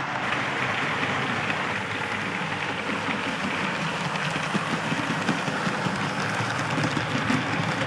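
Model trains running on the layout: a steady rattle of many small wheels over the track, with motor hum, as the model of LMS diesel No. 10000 hauls its coaches past.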